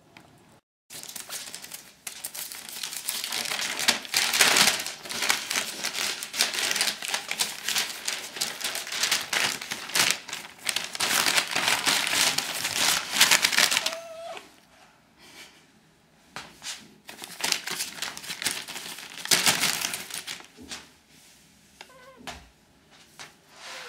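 Newspaper crinkling and rustling as a two-month-old chihuahua puppy burrows and scrambles in it, in two long spells with a pause between. A few short, high puppy whines come in the pause and near the end.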